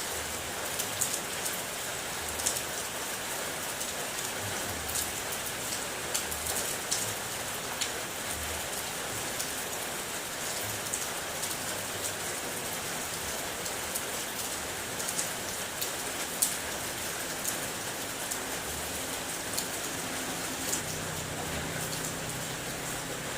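Steady rain falling on a car, with many separate raindrops tapping sharply on the body over a constant hiss.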